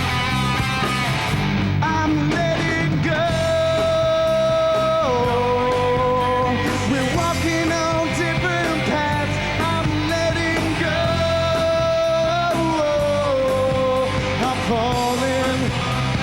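Rock band playing live with electric guitar, bass and drums. A lead melody holds long notes and slides from one pitch to the next.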